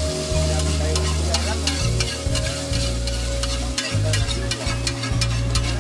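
A metal spatula chops and scrapes egg and minced meat on a flat metal tawa, clacking against the griddle irregularly a few times a second, over the sizzle of frying. Background music runs underneath.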